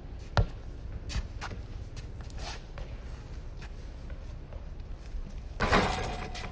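A basketball on an outdoor court: one sharp bounce about half a second in and a few lighter knocks after it, then near the end a louder clatter with a brief ring as the ball hits the metal hoop.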